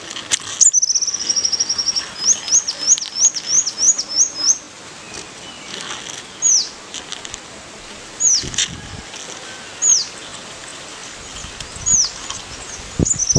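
A small songbird singing. It starts with a fast high trill, then gives a run of quick high notes that slur downward, then single downslurred whistles every couple of seconds, and another fast trill near the end. A couple of sharp clicks come right at the start.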